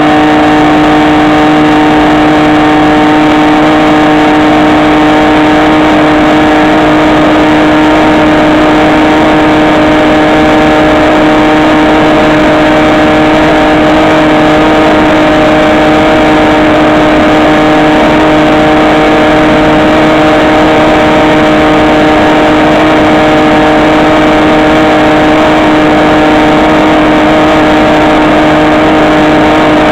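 Electric motor and propeller of a HobbyKing SkyEye FPV plane running at a steady throttle: a loud, unchanging hum at one pitch over a dense rush of noise.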